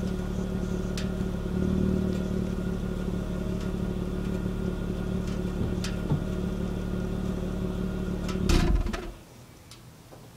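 Honda Ridgeline's V6 exhaust idling steadily, heard close at the tailpipe, with a slight swell about two seconds in. Near the end a short louder burst comes, then the engine sound drops away sharply.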